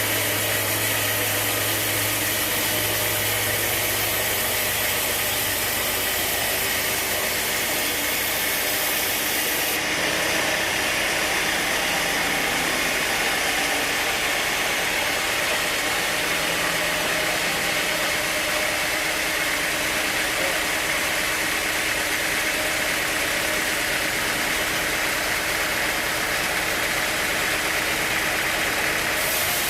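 Sawmill machinery running steadily: a continuous loud mechanical hum and hiss. The highest hiss eases about ten seconds in.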